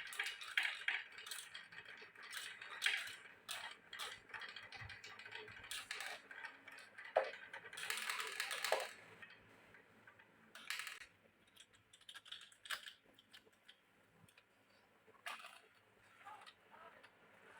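Glass marbles clicking against each other and against the rain-gutter and wooden-rail course, with short rolling scrapes between the clicks. The clicks come thick at first and grow sparser and fainter after about ten seconds.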